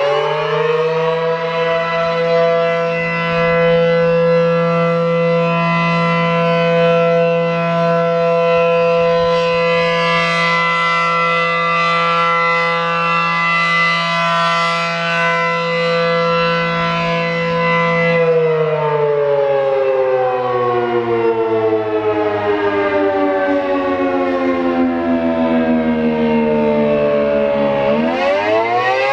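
A.C.A. P-10 rotating outdoor warning siren, reverse-wired, sounding a loud tone. It finishes winding up, holds steady for about eighteen seconds, winds down slowly for about ten seconds, then starts winding back up near the end: one cycle of its fire signal.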